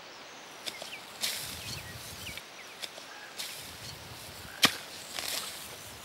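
Footsteps swishing through tall grass: a series of brief rustling swishes, with one sharp snap about two-thirds of the way in.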